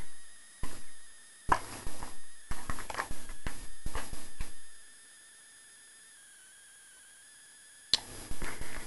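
English springer spaniel smacking and licking with peanut butter stuck to the roof of its mouth: a run of wet mouth clicks and smacks, a pause of about three seconds, then a sharp click and more smacking near the end.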